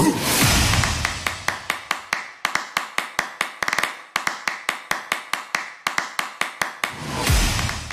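Background music in a percussion break: a fast, even run of sharp clicks, about seven a second, with deep drum hits at the start and again near the end.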